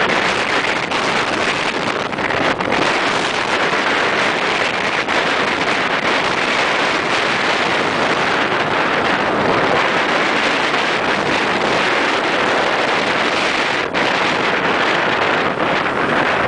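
Steady rush of wind buffeting the microphone on a moving ride along a road, with vehicle and road noise mixed in.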